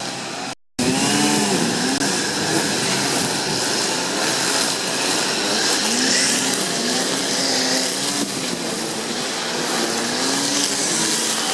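Construction machinery running at a roadworks, its engine pitch rising and falling as under load, over a steady noisy wash. A short break about a second in is a cut.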